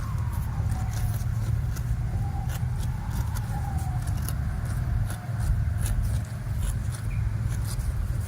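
Cattle hooves clicking irregularly on a rural road over a steady low rumble, with a faint tone sliding slowly down in pitch.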